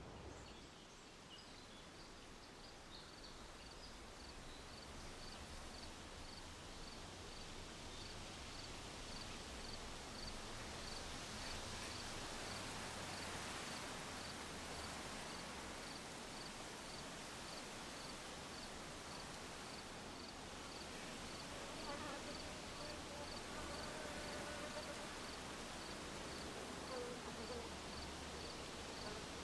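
Faint outdoor ambience: a soft steady hiss with a high chirp repeating evenly, about one and a half times a second, like a cricket. Faint tones come and go near the end.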